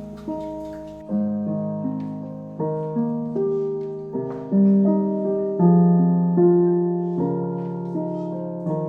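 Background music: piano playing slow chords and a melody, each struck note sharp at first and then fading.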